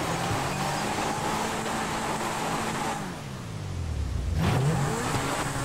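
Video-game supercar engine revving high with its wheels spinning in place and the tyres squealing, the car stuck and barely moving. About three seconds in, the revs fall and the tyre noise drops away, then the engine revs up again.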